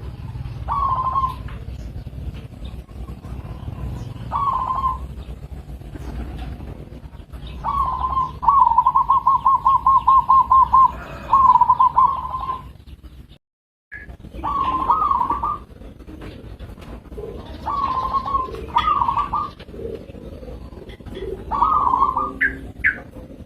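Zebra dove (perkutut) cooing: short soft coos repeated every few seconds, with a fast run of about a dozen quick notes near the middle. The sound drops out completely for half a second about halfway through.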